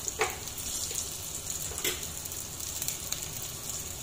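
Hot oil sizzling steadily in a pan around garlic cloves, mustard seeds and cumin seeds, frying as a tempering (phodni), with a couple of faint pops.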